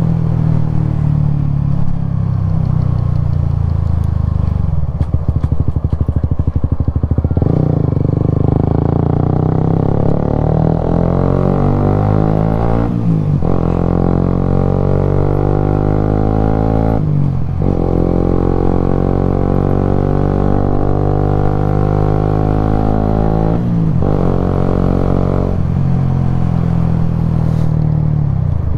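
Suzuki GSX-S125 single-cylinder motorcycle engine running under way, heard from the rider's position. The revs climb steadily in each gear, with three short breaks for gear changes.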